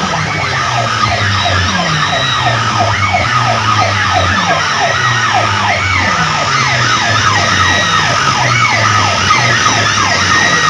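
Siren-like electronic sound effect in DJ music played through large speaker stacks: rapid falling pitch sweeps, several a second, over a steady pulsing bass.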